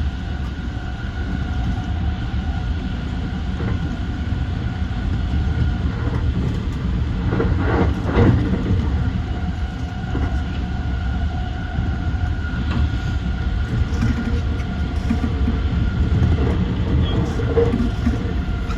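JR East E235-1000 series electric train running between stations: a steady rumble of wheels on rail with a steady whine over it, and a brief louder passage about eight seconds in.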